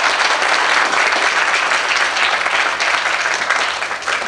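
A congregation applauding in a hall, dense steady clapping that fades out near the end.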